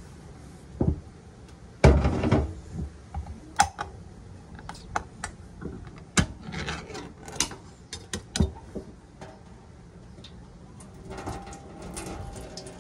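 A can of tuna being opened: a knock, then a louder thump about two seconds in, followed by a run of irregular metallic clicks and scrapes. Near the end comes a soft trickle as the can's liquid is poured off.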